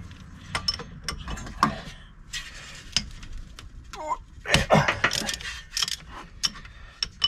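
Hand tool working the T50 Torx bolts of a drive-motor mounting to slacken them: irregular metallic clicks and clinks of tool on bolt, busiest around the middle, with a short creak as a bolt turns.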